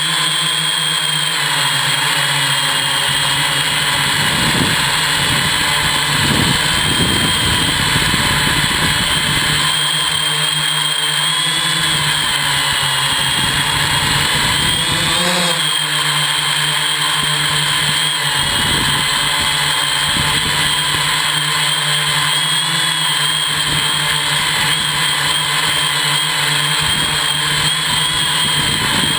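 Hexacopter's electric motors and propellers running in flight, heard from a camera on the frame: a steady high whine that wavers slightly in pitch, with gusty low rumbles of wind on the microphone coming and going.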